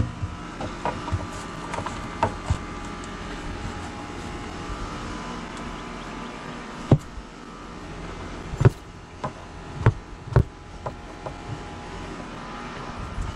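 Scattered knocks and thumps as a black plastic sewer basin is worked down into a dug pit, about seven sharp ones, most of them in the second half. A steady machine hum runs underneath.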